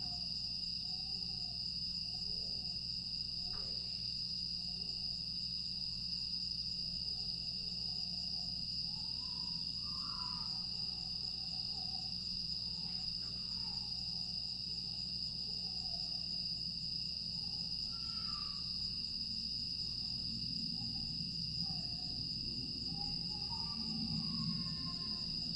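A night chorus of grass insects (crickets) trilling steadily and high-pitched, with faint short calls wavering lower down. A faint low rumble rises near the end.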